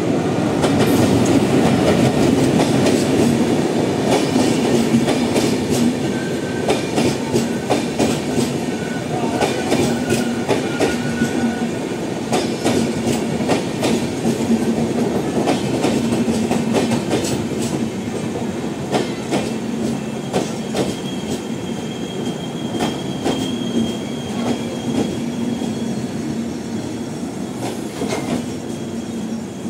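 The Pawan Express passenger train running past on the platform line. The steady rumble is loudest in the first few seconds as the locomotive goes by, then the coaches follow with a rapid clickety-clack of wheels over rail joints. At times a faint, high, steady wheel squeal sounds over it.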